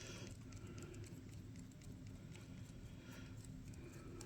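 Faint soft ticks and scrapes of a hand hex driver backing small screws out of a plastic RC-truck portal axle housing, over a low steady hum.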